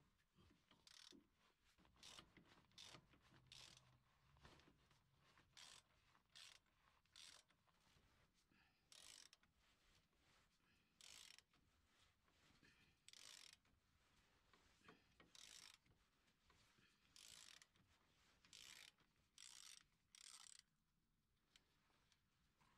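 Socket ratchet clicking in short bursts, about a dozen strokes with pauses between, as the front driveshaft flange bolts are turned; the clicking stops near the end.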